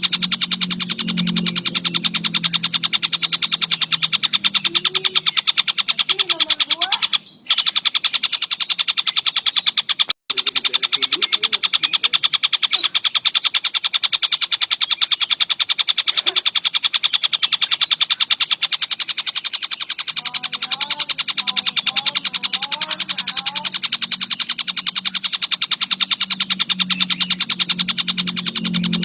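Tengkek buto bird song: a continuous, very fast rattling trill of rapidly repeated high notes, broken off twice for a moment about a third of the way through.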